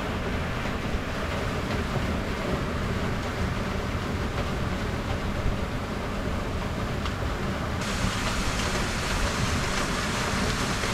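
Steady rushing noise of the Merlion fountain's water jet splashing down into the bay.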